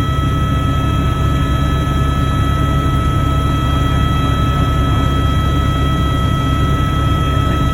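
Helicopter in flight: a steady, loud drone with several constant high whining tones above it.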